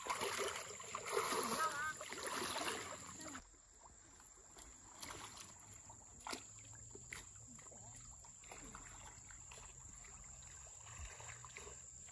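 Pond water splashing loudly as someone wades through it with heavy steps. About three and a half seconds in it drops suddenly to quieter lapping, with small scattered splashes and drips as people move slowly in the water.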